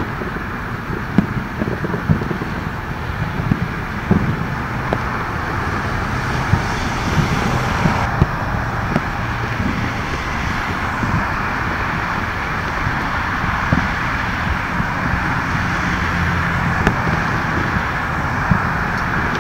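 Many distant fireworks going off across a city. Scattered sharp bangs and pops stand out irregularly over a steady rumble and hiss.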